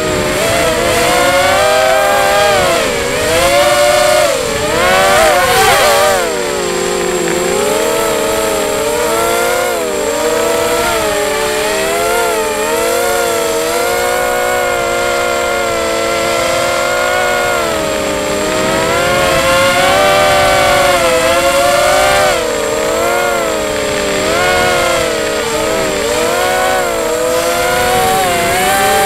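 QAV250 FPV racing quadcopter's brushless motors and propellers whining under a 4S battery, heard from the onboard camera, the pitch constantly rising and falling with the throttle. Louder throttle surges come about four and six seconds in.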